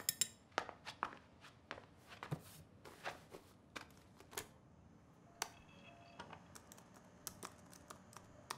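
Footsteps and scattered knocks in a small room, then quick keystrokes on a laptop keyboard in the last few seconds.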